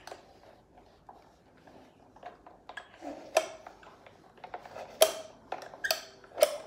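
Irregular plastic clicks and rattles from a toy plush-stuffing machine being worked by hand, sparse at first, with a few sharper clicks in the second half.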